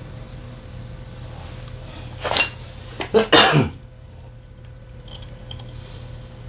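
Metal tools and engine parts clinking and clattering during hand disassembly of a scooter engine: two brief clatters, about two seconds and three seconds in, over a steady low hum.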